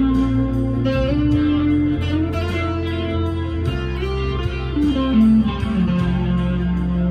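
Harley Benton SC Custom II electric guitar played through an amp's crunch channel, a lightly overdriven tone, picking single-note lead lines with held notes. About five seconds in, a note slides down in pitch.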